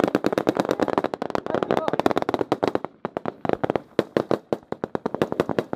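Rapid small-arms gunfire in a firefight: many rifle shots, several a second, overlapping, easing off briefly about three seconds in and then picking up again.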